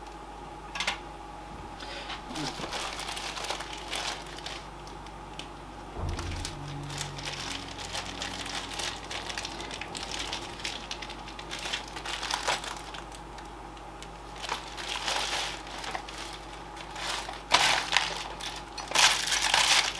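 Rummaging through boxes and trays of loose metal screws: scattered clicks, clinks and rustles, getting busier and louder near the end, over a faint steady hum.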